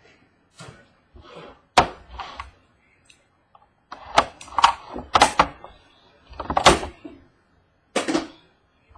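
A trading card box being handled on a tabletop: a series of sharp knocks and thuds as it is set down and its lid is tapped and worked open, with some brief rustling between them.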